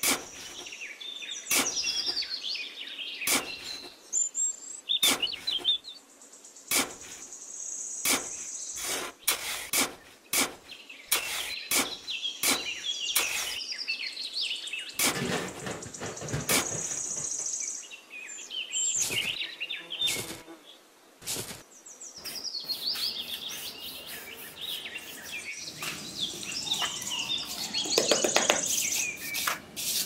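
Sharp scrapes and taps of a small metal trowel working damp sand, with plastic being handled, over birds chirping throughout.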